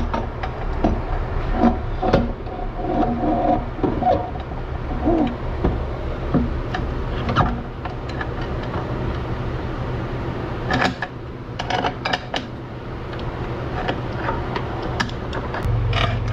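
Steel rear axle of a Honda 400EX ATV being slid back through its freshly greased bearing carrier and sprocket hub. Metal scrapes with a squeal in the first few seconds, then repeated clinks and knocks of metal on metal, loudest about eleven to twelve seconds in.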